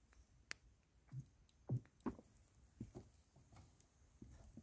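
Faint soft knocks and thumps as a roasted sausage is worked off a wooden stick onto a wooden cutting board, the loudest thump a little under two seconds in. A sharp click about half a second in.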